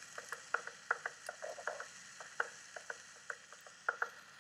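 A run of light, irregular clicks and taps, a few each second, as of kitchen utensils being handled, over a faint steady hiss.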